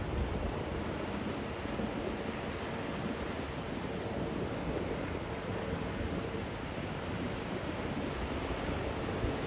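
Steady rushing noise of wind on the microphone and sea water, with a faint steady hum underneath.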